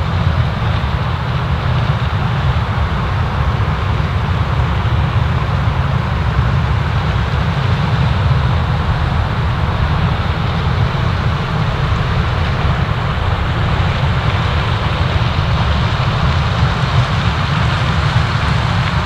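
Heavy harvest machinery running steadily: a low rumble with an even hiss over it.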